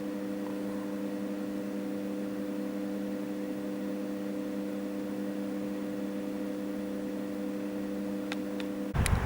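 A steady, unchanging hum of several constant tones, with two faint ticks near the end.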